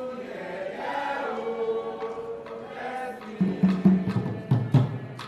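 Voices singing a chant together, with drums coming in about three seconds in and beating steadily.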